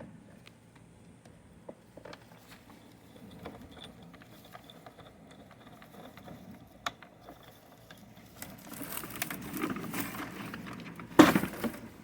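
Hand work on a jammed, switched-off electric wood chipper being opened and cleared: scattered light clicks and taps, then rustling and scraping of stuck branches from about eight seconds in, and one loud knock near the end.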